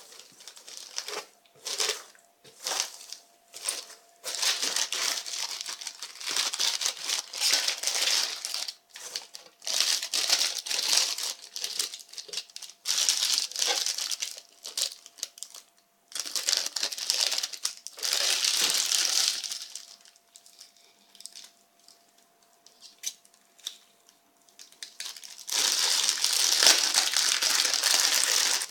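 Polystyrene packing peanuts squeaking and crunching in a cardboard box as hands rummage through them and pull out plastic-wrapped packages, with the wrap crinkling. The rustling comes in bursts of a few seconds and goes quieter for several seconds past the middle.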